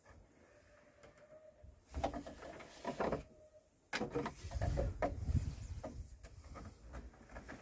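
Handling noise from work on a whole-house water filter's housings: scattered knocks, clunks and scraping that begin about two seconds in and grow busier from about four seconds, with low thumps.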